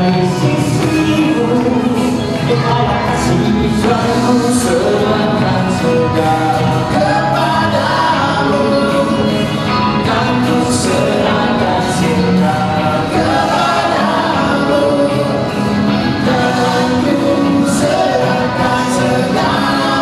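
Live band playing a song, a singer over electric guitars and drums, amplified through the hall's PA speakers.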